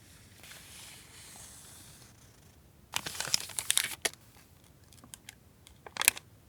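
Packaging crinkling as it is handled: a faint rustle, then a dense second of crinkling about three seconds in, a few light ticks, and a short sharp crinkle near the end.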